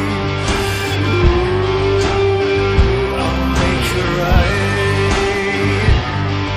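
Rock music with guitar and a steady beat, an instrumental stretch of the song without singing.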